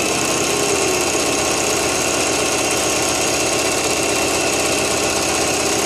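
Singer electric sewing machine running steadily at speed, stitching a long straight basting seam with the stitch length set to its longest.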